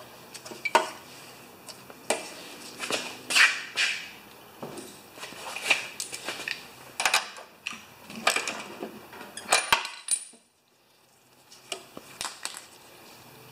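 Scattered metal clinks and knocks of hand tools being handled and set down: a spark plug socket and ratchet and an in-line spark tester. A short gap of near silence comes about three quarters of the way through.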